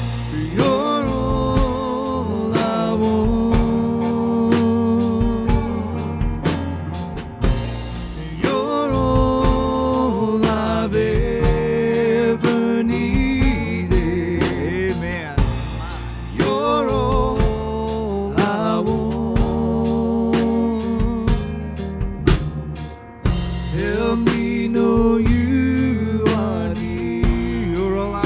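Live worship band playing a slow chorus in B flat, with drum kit, guitar and bass under a sustained melody line.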